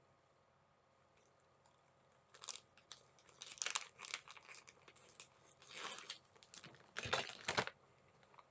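Plastic snack packaging crinkling and tearing open in irregular bursts, the loudest rip near the end.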